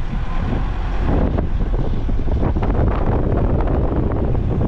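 Heavy wind noise on the microphone from travelling in a moving vehicle, with steady road rumble underneath.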